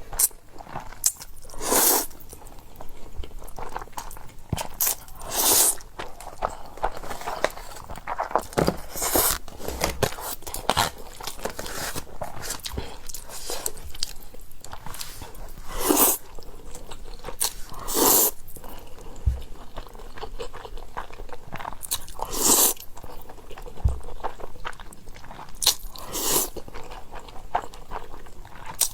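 A person eating pasta close to the microphone: continuous chewing, with a louder bite every few seconds.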